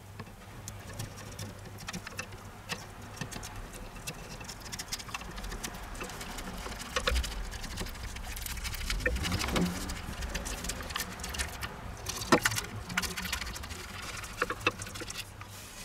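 Plastic spatula scraping and clicking against a non-stick frying pan as it works loose a thin batter wrapper stuck to the hot pan, with a light crackle and a few sharper clicks, over a low steady hum.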